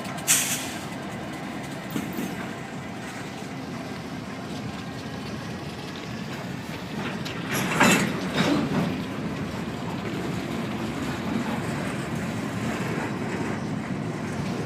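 A train rolling past on the track, giving a steady noise of the cars going by. A sharp crack comes about half a second in and a louder clatter about halfway through.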